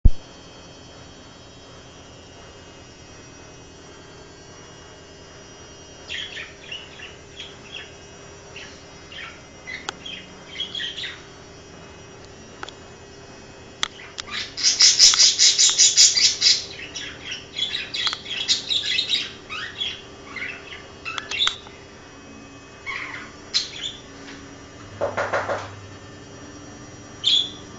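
Pet budgerigar chirping in short, high calls. Halfway through comes a loud run of fast repeated chirps, and shortly before the end a lower, pulsed call.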